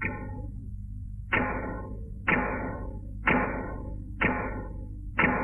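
Struck percussion hits, six of them about a second apart, each ringing briefly and fading, over a steady low hum: a suspense cue in a cartoon soundtrack.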